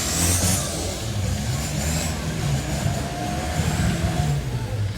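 Off-road 4x4 race vehicle's engine running and revving unevenly, with a thin high whine above it.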